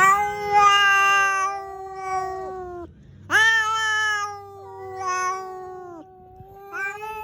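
Angry cat yowling: several long, drawn-out caterwauls with short gaps, each sagging in pitch as it ends.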